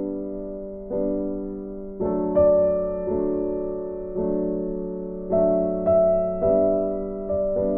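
Background piano music: slow chords struck about once a second, each one fading before the next.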